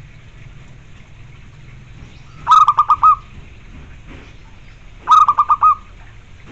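Zebra dove cooing: two short phrases a couple of seconds apart, each a quick run of about five rippling notes.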